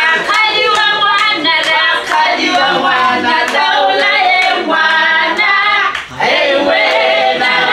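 A group of voices, led by women, singing together unaccompanied, holding and gliding long notes. The singing breaks off briefly about six seconds in, then starts again.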